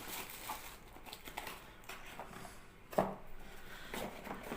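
Faint handling sounds of a hand pump's parts and packaging being moved about: scattered light clicks and small knocks, with one louder knock about three seconds in.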